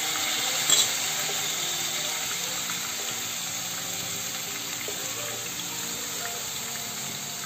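Marinated chicken pieces sizzling in hot oil in a non-stick kadai, a steady hiss that slowly fades. A light knock of the bowl against the pan under a second in.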